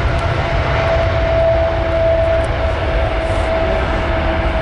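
British Airways Boeing 777-236ER's GE90 turbofan engines at take-off power as the airliner rolls for take-off. It is a loud, steady rumble with a humming fan tone over it.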